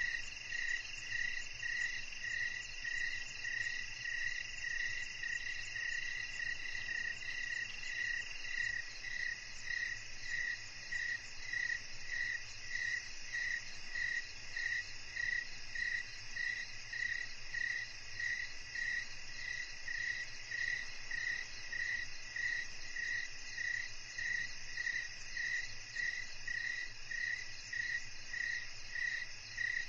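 Chorus of crickets and other night insects, with a high steady trill and a regular pulsed chirp about twice a second; another steady trill drops out about 8 seconds in.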